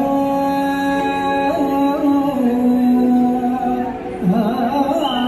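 Indian vocal music: a voice holds long, steady notes, stepping down in pitch about halfway through, then moves into a wavering, ornamented line near the end.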